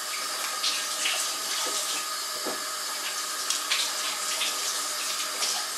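Kitchen tap running steadily into a sink, with a few short sharper sounds on top.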